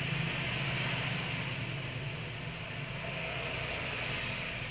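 Steady low mechanical drone with a hiss above it, easing off slightly toward the end.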